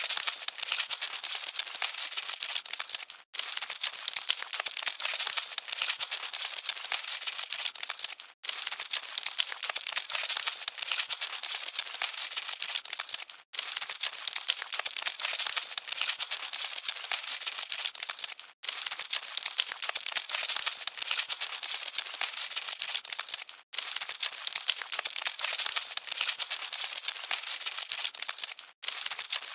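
Cockroaches scuttling: a dense, dry crackling rustle of many tiny clicks. It drops out for a moment about every five seconds as the short recording loops.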